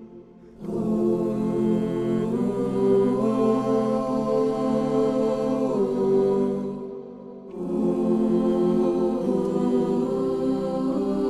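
Mixed-voice choir singing a cappella in slow, long-held chords that move together. The voices come in about half a second in and break off for about a second near the middle between two phrases.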